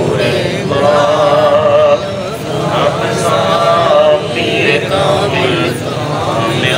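A man's voice chanting a devotional recitation on long, wavering held notes, breaking off briefly about two and four seconds in, over a steady crowd murmur.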